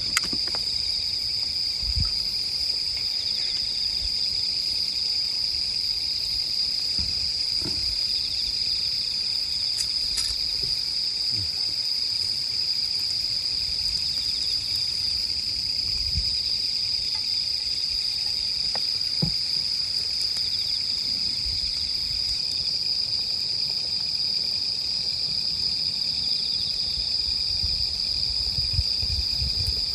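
Autumn night chorus of crickets and other singing insects: a continuous high-pitched trilling that holds steady throughout, with a few faint scattered clicks beneath it.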